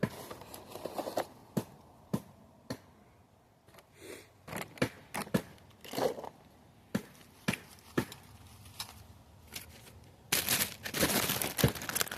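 Crinkling plastic packaging and the small clicks and knocks of tools being handled and set down, with a denser burst of crinkling near the end.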